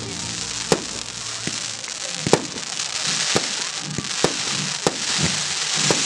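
Fireworks display: aerial shells bursting with sharp bangs about once a second, over continuous crackling that thickens after about two seconds.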